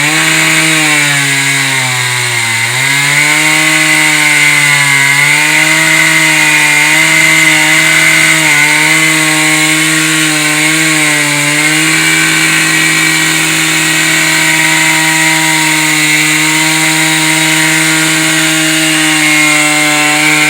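Masonry chainsaw cutting into a concrete and stone wall. The motor dips in speed twice early on, then holds a steady high pitch under a gritty cutting hiss, with slight wavers as it bites.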